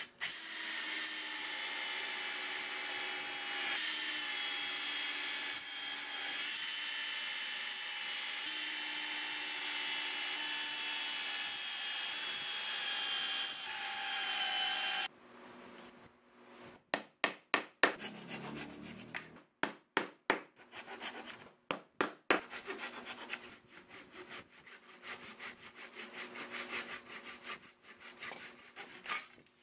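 Electric drill running with its bit boring into an oak slab, a steady whine that stops abruptly about halfway through. Then a flat hand blade is worked across the oak in quick, uneven strokes.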